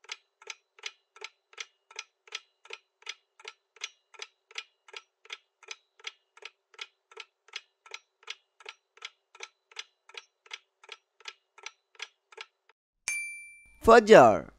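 Quiz countdown-timer sound effect: a clock-like tick, about three a second, that runs for some twelve seconds and then stops. About half a second later a bright chime marks the answer reveal, and a voice says "Fajr" at the very end.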